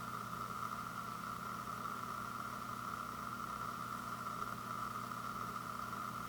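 Steady background hum and hiss with no handling or other distinct sounds: room tone.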